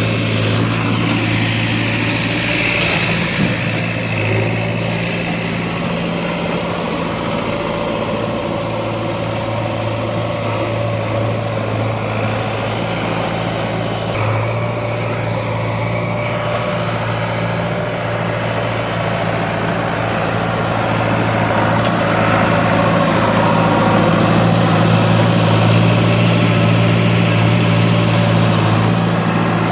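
Heavy diesel engine running steadily at a low, even pitch, growing somewhat louder for a few seconds past the twenty-second mark.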